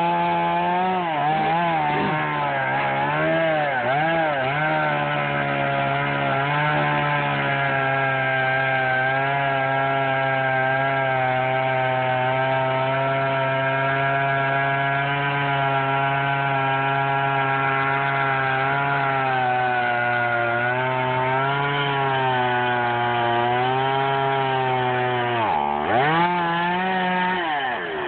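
Chainsaw cutting through a tree. The engine's pitch dips and recovers several times in the first few seconds as the chain bites, then holds steady. Near the end it drops sharply and climbs back.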